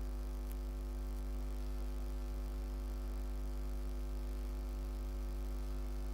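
Steady electrical mains hum: a low 50 Hz drone with a stack of buzzing overtones, unchanging throughout.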